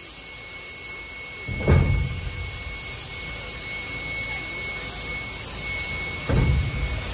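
Steam locomotive 5917, an NSW 59 class 2-8-2, moving slowly with two heavy exhaust chuffs about four and a half seconds apart, over a steady steam hiss and a thin high-pitched whine.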